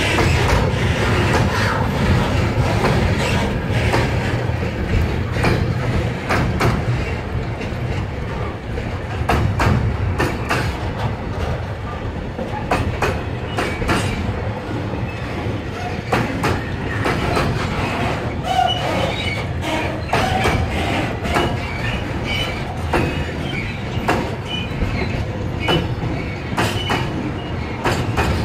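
Slow freight train rolling past: a steady low rumble with frequent clicks of wheels over the rail joints. Brief wheel squeals come in the second half.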